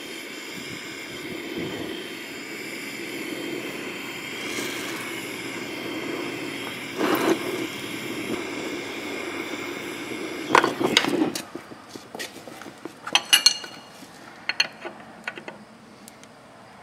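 Oxy-fuel torch flame hissing steadily as it heats the boss around a seized stud on a transmission housing to break the stud loose. The hiss stops about eleven seconds in, followed by a few light metallic clinks.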